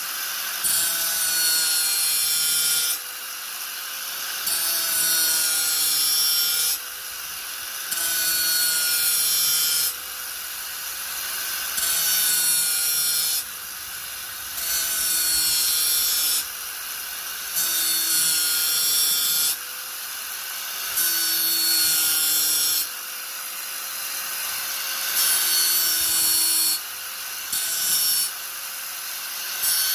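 Angle grinder running steadily on wood, with its motor whine held at a constant pitch. It is pressed into the work again and again, about ten passes of one to three seconds each, and each pass brings a louder hissing grind over the motor.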